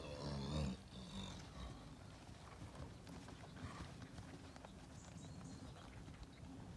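A horse whinnies briefly at the start, then its hooves beat faintly and irregularly as it moves on.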